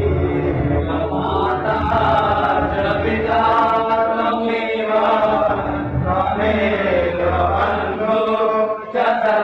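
Devotional chanting of a mantra: long, slowly gliding sung lines over a low steady drone that fades out near the end.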